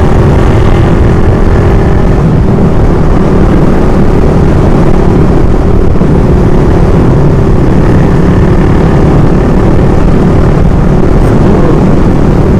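Motorcycle ridden at road speed: a loud, steady rush of wind over the microphone with the engine's even drone underneath.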